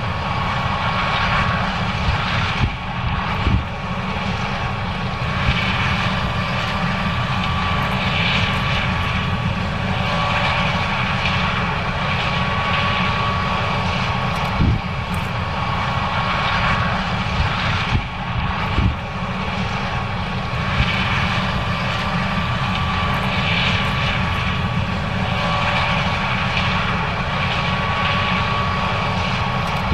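John Deere S670 combine running steadily while harvesting corn: a constant engine and machinery drone with a thin steady whine. A few short knocks stand out now and then.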